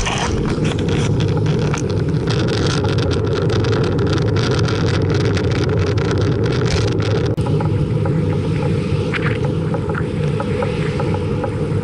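Wind rumbling on the microphone of a camera mounted on a moving bicycle, mixed with road noise. Rapid crackles and rattles between about two and seven seconds in.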